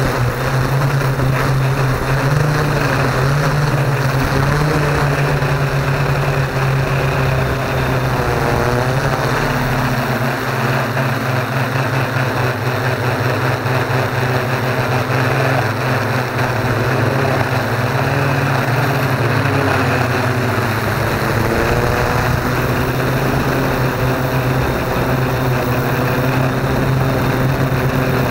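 Yuneec Q500 Typhoon quadcopter's electric motors and propellers buzzing steadily in flight, heard close up from the drone itself. The pitch shifts a little a few times as the motors change speed.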